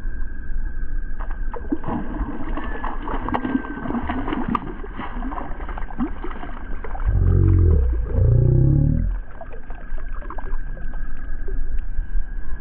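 A fish splashing as it swirls at a lure on the surface of a calm pond, with clicks and handling of a spinning rod and reel. About seven seconds in there is a louder, low wavering sound lasting about two seconds, its pitch dipping and rising again.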